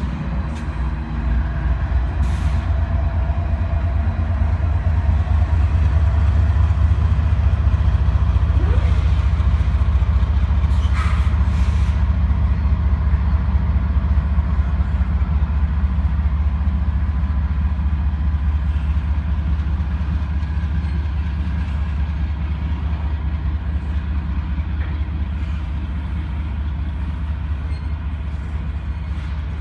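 Freight train rolling past with a heavy, steady low rumble of wheels on rail. It grows a little louder for the first several seconds, then slowly eases off. A few short high-pitched noises break through about two seconds in and again between about nine and twelve seconds.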